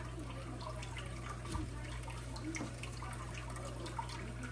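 Steady trickle of water and a low hum from an aquarium filter, with faint small taps and rustles of hands pressing on a cardboard crescent-roll can.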